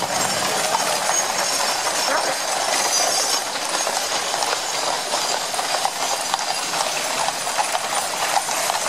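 Many shod horses' hooves clip-clopping on a paved road, with the rattle of the wheels of horse-drawn gun carriages rolling past.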